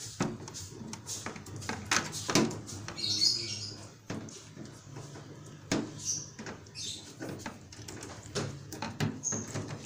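Hands working wires and electrical tape: irregular rustling and small clicks, with a few short, high chirp-like squeaks scattered through.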